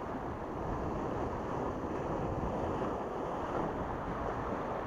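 Small sea waves washing against the rocks of a breakwater, with wind buffeting the microphone, a steady rushing noise that swells slightly mid-way.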